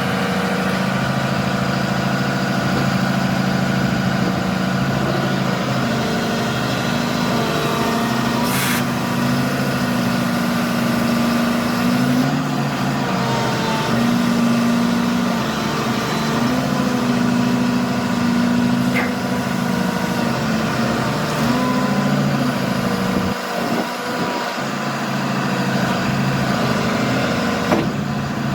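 Diesel engine of a 2018 Hyundai HX260L excavator running steadily, its note shifting in strength several times, with faint gliding whines over it. There are two sharp clacks: one about nine seconds in and one near the end.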